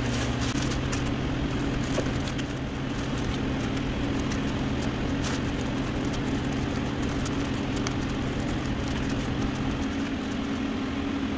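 Plastic spreader scraping body filler across wax paper on cardboard, faint scratchy ticks over a steady low hum from shop equipment that eases off near the end.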